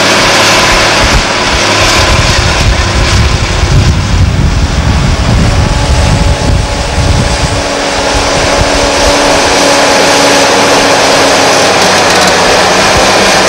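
Liebherr R962 hydraulic excavator's diesel engine running under load as the machine swings and digs. A heavy low rumble fills the first half and eases off about eight seconds in, leaving a steadier engine tone.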